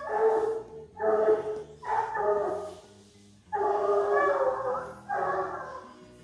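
American Foxhound baying: five long, drawn-out bawls in quick succession, with a short pause after the third.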